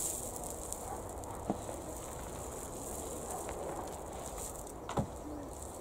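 Soil being tipped from a plastic bucket into a wooden raised bed, a soft steady rustle with two knocks, a light one about a second and a half in and a louder one near the end.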